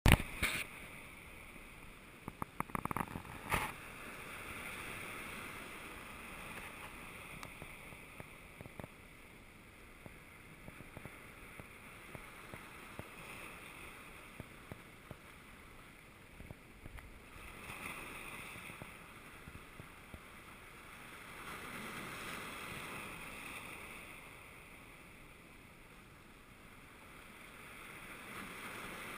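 Sea waves washing and breaking over shore rocks, the surge swelling and easing every few seconds. A few sharp clicks and knocks in the first few seconds are the loudest sounds.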